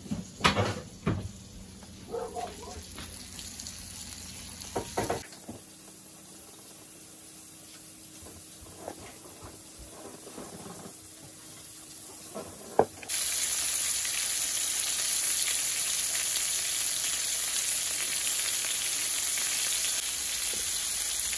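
Floured cod pieces frying in a pan: a loud, steady sizzle that starts suddenly about thirteen seconds in. Before that, a few light knocks and handling sounds over a quiet background.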